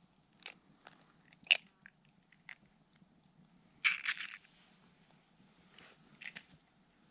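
Eggshell being cracked and pulled apart by hand over a wooden bowl: a few separate small crackles, then a denser burst of crunching about four seconds in, and a few more crackles near the end.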